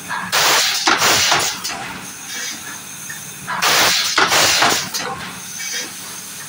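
Plastic-bottle blow moulding machine cycling: two loud bursts of compressed-air hiss and bottle clatter, about three seconds apart, as each row of blown bottles is pushed out of the mould, over a low steady machine hum.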